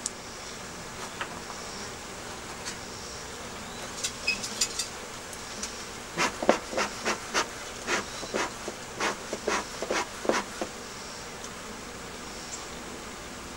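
Honeybees buzzing around hive entrances. About six seconds in, a run of short, loud buzzes comes two or three a second for some four seconds as single bees fly close past.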